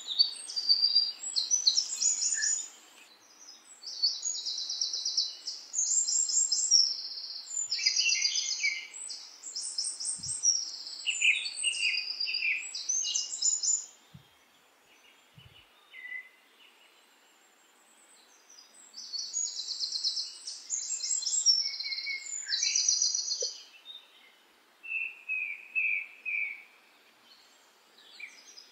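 Songbirds singing: quick, high-pitched trilled phrases in short bursts, with a quiet stretch of several seconds about halfway through.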